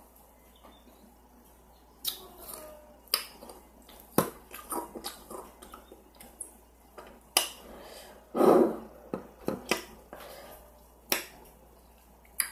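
Ice crunched between teeth right at a microphone: sharp cracks every second or so with softer crackling between them, and one longer, duller crunch about two-thirds of the way in.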